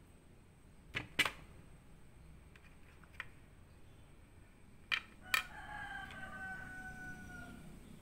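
Two pairs of sharp clicks as ginger pieces and cinnamon sticks are handled and set down on a ceramic plate, then a long drawn-out animal call of about two seconds, falling slightly in pitch.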